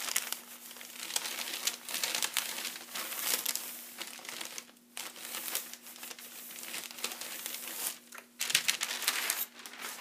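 Baking paper rustling and crinkling as a dry iron is pushed and slid over it in uneven strokes with short pauses, louder near the end.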